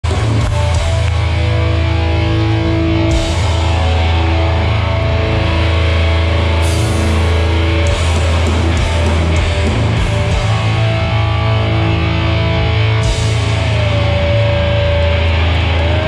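Live hardcore band playing loud over a PA: heavy guitars held over a thick, steady bass, with a bright crash about every three and a half seconds.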